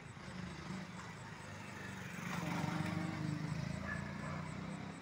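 Street traffic under a steady motorbike engine hum, swelling to its loudest about two and a half seconds in and then easing off.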